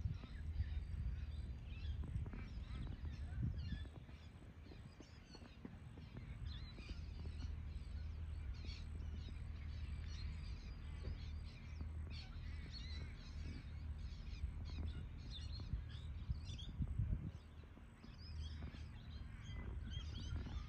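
Many birds chirping and calling at once in the bush, short calls overlapping throughout, over a steady low rumble.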